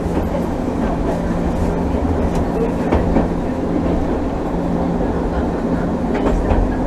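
Hankai Tramway streetcar running along the track, heard from inside the car: a steady rumble with a constant low hum, and a few clicks from the wheels over rail joints, several of them close together near the end.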